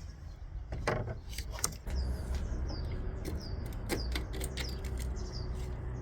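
Small birds chirping over and over in short falling calls, with a few sharp clicks in the first two seconds and a low steady hum that comes on about two seconds in.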